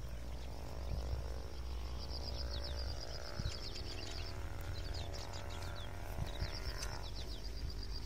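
Outdoor chorus of small animals chirping high-pitched, in runs of rapid falling notes that come and go, over a steady low rumble.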